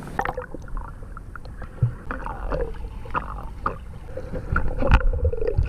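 Muffled underwater sound from an action camera submerged in a swimming pool: water sloshing with scattered clicks and knocks, and a louder knock near the end.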